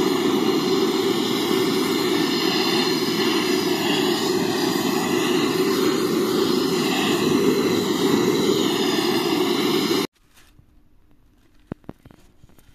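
Gas torch flame burning with a loud, steady rushing hiss as it heats a steel bearing housing. The flame noise stops suddenly about ten seconds in, followed by a few faint clicks.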